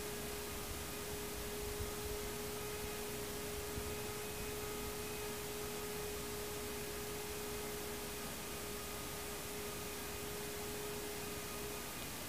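Room tone: an even steady hiss with a constant mid-pitched electrical hum over it. The hum cuts out for a moment near the end.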